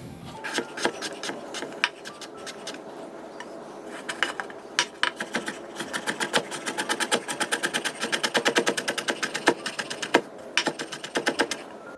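Kitchen knife mincing vegetables on a cutting board: rapid, regular chopping strokes, several a second, quickest in the middle stretch.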